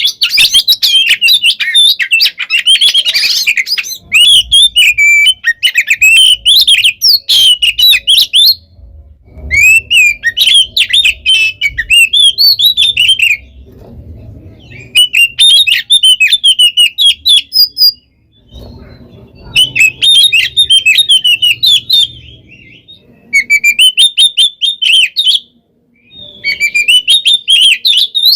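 Oriental magpie-robin singing a loud, fast, varied song of high chirps and whistles in bursts of a few seconds with short pauses between. This is the aggressive 'fighting' song that keepers play to goad other magpie-robins into singing back.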